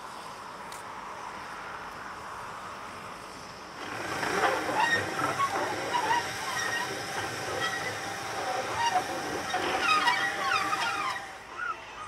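Steam railway sounds: a steam locomotive hissing, with short high squeals and tones, starting suddenly about four seconds in over a steady station background and dying away near the end.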